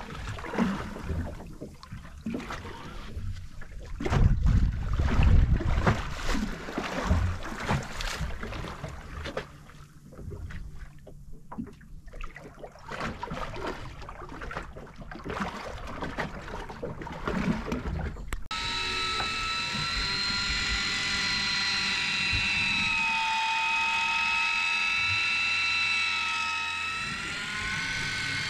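Wind and water noise with scattered knocks against the boat. About two-thirds of the way in, an electric deep-drop fishing reel's motor starts abruptly with a steady high whine as it winds in line. Its pitch wavers and rises slightly near the end.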